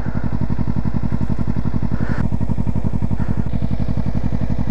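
Kawasaki Ninja 300's parallel-twin engine idling steadily through an Akrapovic slip-on exhaust with its noise killer removed, giving an even, fast, low pulsing.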